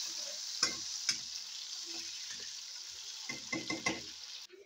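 Chopped tomatoes sizzling as they fry in oil in a non-stick kadhai, with a spoon scraping and knocking against the pan as they are stirred, several quick strokes near the end. The sizzle cuts off suddenly just before the end.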